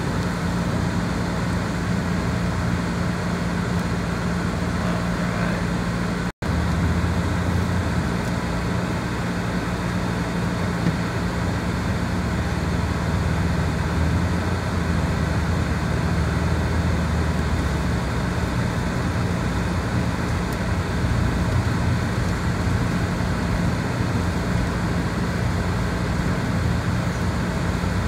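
Steady car cabin noise while driving slowly on a snow-covered road: a low engine and tyre hum. The sound drops out for an instant about six seconds in.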